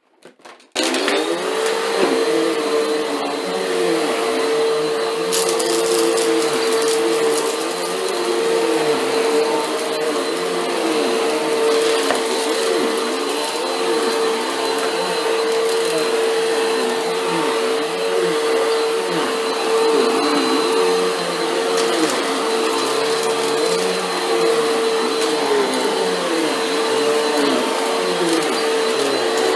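Vacuum cleaner switching on about a second in and then running steadily on carpet, a constant whine over a wavering lower tone, with scattered crackles as crunchy grit and debris are sucked up.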